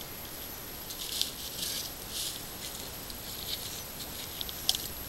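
Short bursts of splashing and rustling as a traíra (wolf fish) is landed from shallow water through dry bankside grass, with a sharp click near the end.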